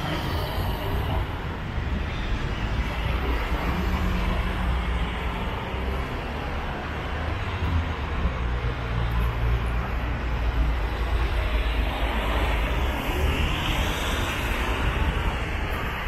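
Steady street noise heard from a moving bicycle: a low rumble of wind on the camera's microphone over city traffic.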